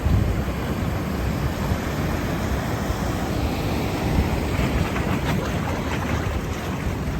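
Strong wind buffeting the microphone with a low, uneven rumble, over the steady wash of breaking surf.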